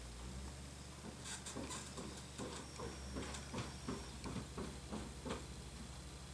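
Ford 8830 tractor's diesel engine running as a low drone, over which comes a run of quick sharp ticks, about three or four a second, through the middle few seconds.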